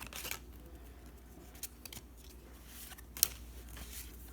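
Light handling of Pokémon trading cards: soft clicks and rustles, with one sharp click about three seconds in, over a steady low hum.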